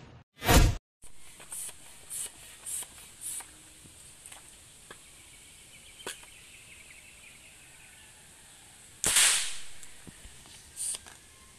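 A whoosh sound effect at the start; then a few faint clicks as the homemade wooden marble gun is handled. About nine seconds in, the marble gun fires once with a sharp crack and a hiss that trails off over about a second, and a softer click follows near the end.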